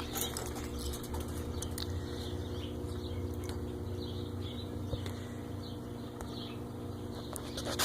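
Caged pet birds giving soft, scattered chirps over a steady low hum, with a few sharp clicks near the end.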